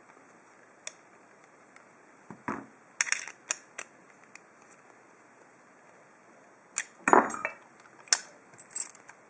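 Padlock parts being handled: sharp metal clicks and clinks in scattered clusters, with a single click about a second in, a run of clinks around three seconds in, and the loudest clatter near seven seconds.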